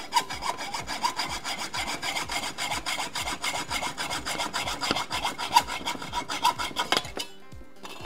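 Hacksaw cutting through metal threaded rod clamped in a bench vise, in fast, steady back-and-forth strokes. The sawing stops about seven seconds in, as the cut is finished.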